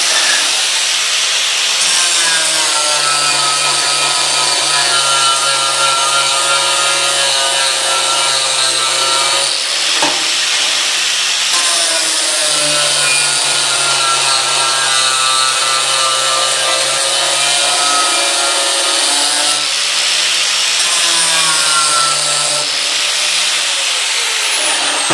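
Angle grinder with a 120-grit flap disc grinding adhesive labels off aluminium ladder rails: a steady, loud abrasive rasp over the motor's whine. The whine's pitch shifts briefly about ten and twenty seconds in, and falls near the end.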